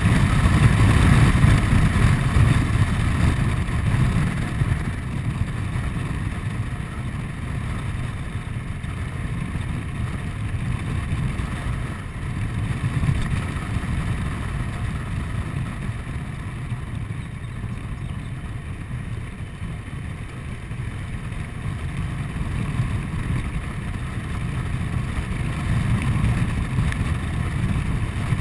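Honda Forza 125 scooter's single-cylinder four-stroke engine running along with low wind rumble on the microphone. The sound eases off through the middle and builds again near the end, as the rider slows and then picks up speed.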